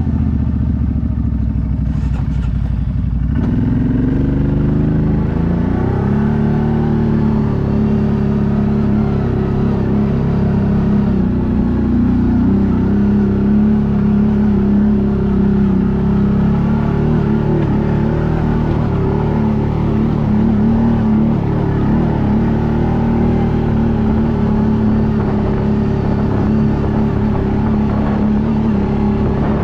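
ATV engine running under load, rising in revs about three seconds in and then holding a steady drone as it climbs the track.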